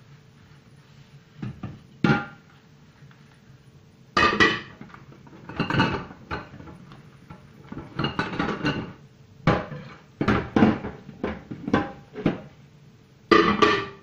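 Dishes and pots clinking and clattering in a kitchen sink as they are washed by hand: irregular knocks and clanks, some ringing briefly, in short clusters.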